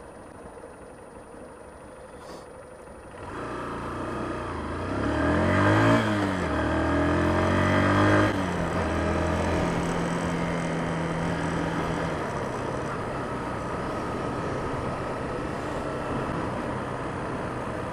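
Honda CBF125's single-cylinder four-stroke engine pulling away from a standstill: a low idle, then a rising engine note about three seconds in that drops back sharply twice, about six and eight seconds in, as it shifts up through the gears, before settling to a steady cruise with wind and road noise.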